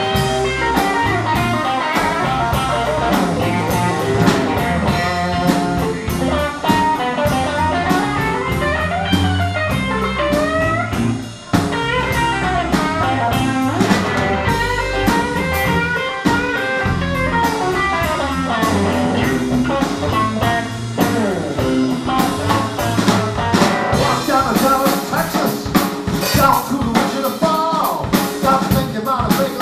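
Live blues band playing an instrumental passage: electric guitars over a drum kit, with a lead line of bending notes.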